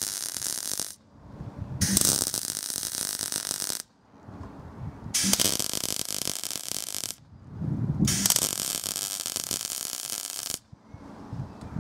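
Electric welding on the steel pedal box bracket, in runs of about two seconds that start and stop abruptly, four in all, with short pauses between them.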